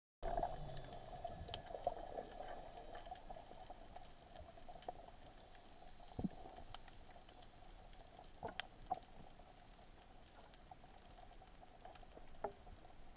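Underwater ambience picked up by a camera submerged on a speargun: a faint steady hiss with scattered small clicks and crackles, a few sharper clicks standing out.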